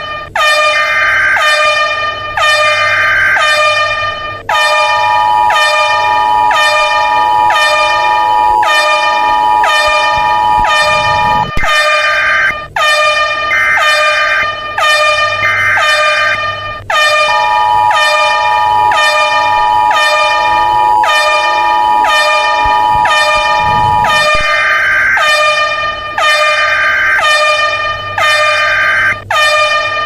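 Synthesized emergency alert alarm: a loud, harsh horn-like tone that dips in pitch over and over. A steady two-tone attention signal near 1 kHz comes in for stretches of about seven seconds, and these alternate with sets of three higher beeps.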